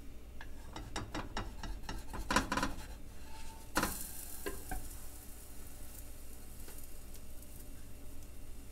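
Slotted spatula scraping and clicking against a nonstick frying pan as it works under a banana oatmeal pancake. The pancake is flipped with a loud sizzle about four seconds in, and a faint steady sizzle follows.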